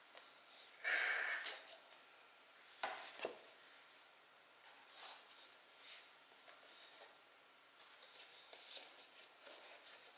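Faint sounds of drawing work on paper: a short rubbing or scraping burst about a second in, two sharp knocks a few tenths of a second apart around three seconds in, then scattered soft rustles and ticks.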